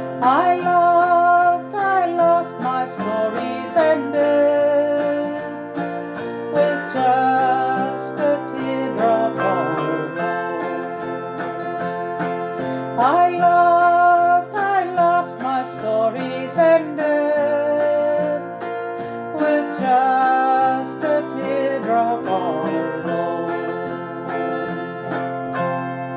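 Autoharp strummed in chords, with a higher melody whose notes slide up into pitch, playing out the instrumental ending of a slow country song; the music dies away near the end.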